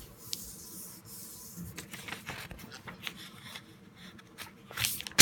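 Sheet of paper being folded and creased by hand into a paper airplane: rustling and rubbing, with a louder crinkle near the end.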